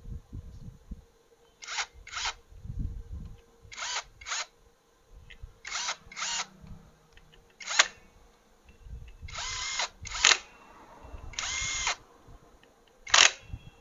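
Cordless impact wrench run in a string of short bursts, several in pairs and a few longer ones near the end, driving in the clutch pressure-plate bolts on a Hero CBZ Xtreme motorcycle engine.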